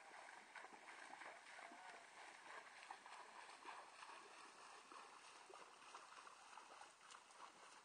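Faint splashing of a horse wading through a shallow pond, with light scattered hoof sounds.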